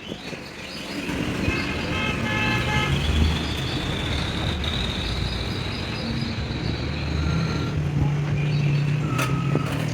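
Road traffic: a vehicle horn tooting in a quick run of short beeps about two seconds in, over engines running, with a thin high whine in the middle and a sharp click near the end.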